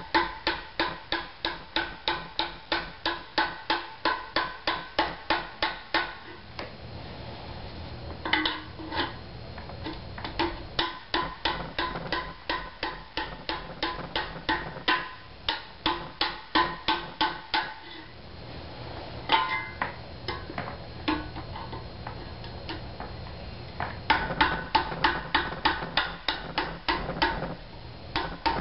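Rapid hammer blows on metal, about three a second, each with a short ringing note. They thin out briefly twice.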